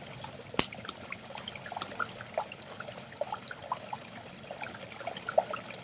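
Water running from a tap into a sink: a low trickle with many small, irregular drip plinks, and one sharp click about half a second in.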